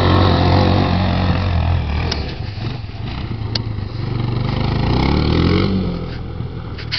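Kawasaki KLF 220 ATV's single-cylinder four-stroke engine running under throttle, rising and easing off, then revving down in pitch near the end.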